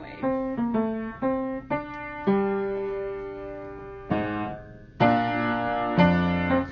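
Piano playing a slow melody of single struck notes that ring and fade, including one long held note, then two fuller chords about a second apart near the end.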